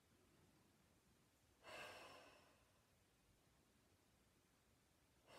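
A woman's quiet, deep breaths during a guided Pilates breathing stretch: one about two seconds in, lasting about a second, and another starting at the very end.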